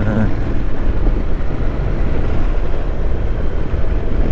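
Honda NC750X motorcycle on the move, heard from the rider's position: a steady low rumble of wind and engine.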